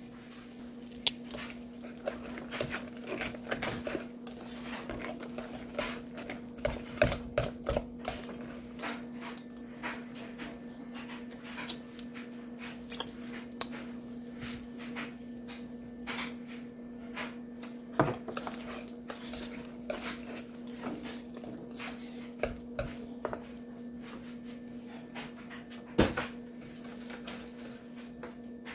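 Scattered clinks and taps of kitchenware: a wire whisk scraping and knocking against an enamel pot while whipping mashed potatoes, with utensils and dishes handled on the counter. A few louder knocks stand out, over a steady low hum.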